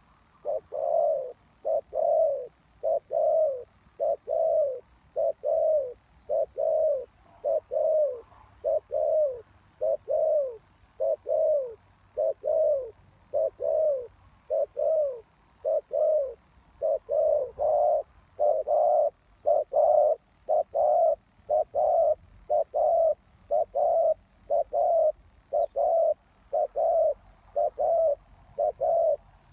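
Spotted dove cooing: a long, steady series of low, mellow coos at about one a second, beginning just after the start.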